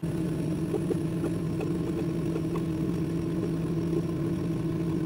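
Laser cutter running while it cuts clock parts from a sheet of 2 mm acrylic: a steady mechanical hum with a low drone and a few faint ticks.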